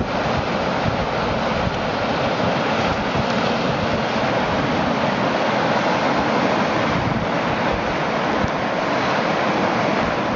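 Rushing whitewater of a rapid, a steady, even noise, with wind buffeting the microphone.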